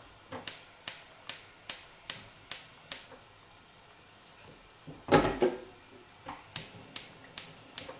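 Gas hob's spark igniter clicking about two to three times a second while the burner under the grill pan is lit. About five seconds in, a loud clunk of the heavy square grill pan being shifted on the metal grate, then a few more igniter clicks near the end.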